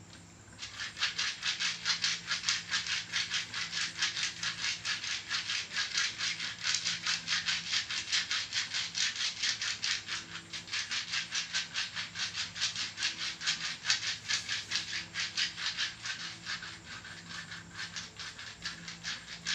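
Jinitri (rudraksha) seeds rubbed rapidly back and forth over a patient's body in a massage, a dry rattling rasp at about four strokes a second that starts about a second in and eases off a little near the end.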